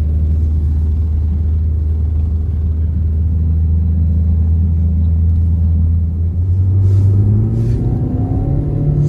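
Car engine heard from inside the cabin, labouring steadily at low revs as the car pushes through deep snow, then revving higher in steps from about six seconds in.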